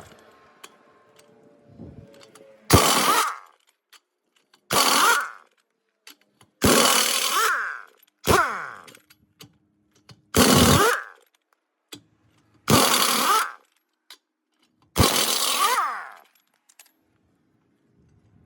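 Power tool, most likely a pneumatic impact wrench, run in seven short bursts of about a second each with quiet gaps between them.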